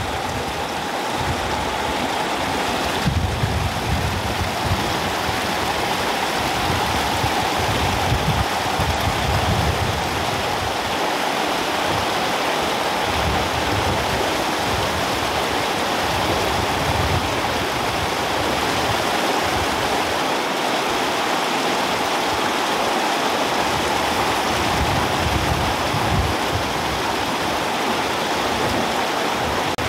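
Rushing mountain stream: a steady, loud hiss of fast-flowing water, with a low rumble that comes and goes, mostly in the first half.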